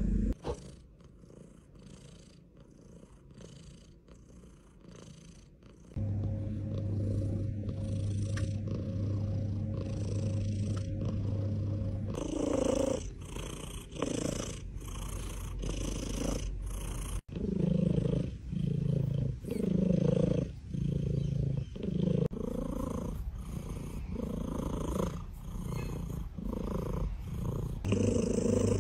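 Domestic cat purring close to the microphone, loud enough to be likened to an engine running. It is softer for the first few seconds, then swells and fades about once a second with each breath in and out.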